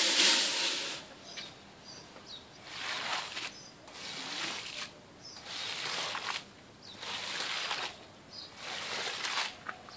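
A carpet-cleaning machine running loudly stops about a second in. Then a squeegee is pushed through soapy water on a wet shag carpet in repeated swishing strokes, about one every second and a half, with birds chirping faintly between them.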